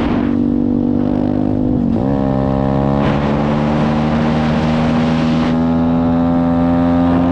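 125cc pit bike engine with a Nibbi carburettor at high revs under full throttle. It shifts up a gear about two seconds in, then pulls with a slowly rising note as speed climbs. Wind rushes over the microphone for a few seconds in the middle.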